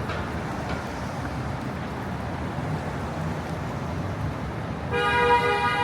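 City street traffic noise, then a car horn honks once near the end, a steady blast of just under a second.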